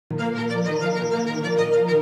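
Background music of sustained, held notes.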